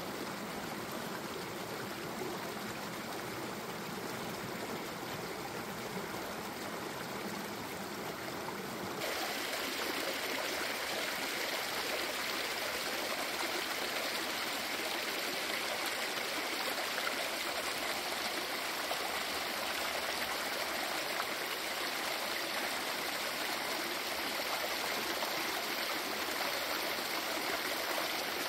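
Meltwater mountain stream running and splashing over rocks beneath ice and icicles, a steady rush of water. About nine seconds in it changes abruptly to a brighter, slightly louder rush.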